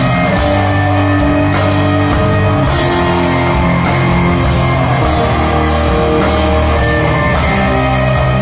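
Live rock band playing: electric guitars holding sustained chords over bass and drum kit, with repeated cymbal crashes.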